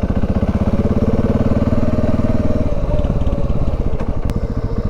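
Dual-sport motorcycle engine running steadily while riding, its firing pulses even throughout; the engine note drops a little a bit over halfway through.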